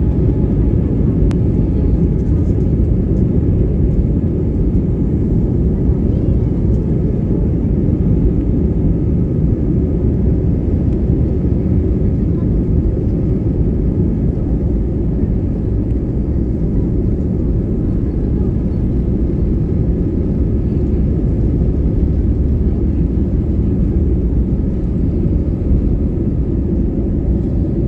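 Jet airliner cabin noise while taxiing: a steady low rumble with faint, steady high engine tones above it.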